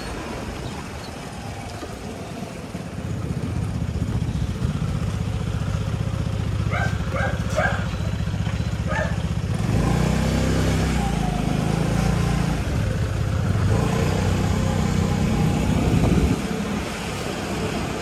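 Small motorcycle engine running at low speed, its note getting louder and shifting in pitch from about ten seconds in until about sixteen seconds. A few short high chirps sound about seven to nine seconds in.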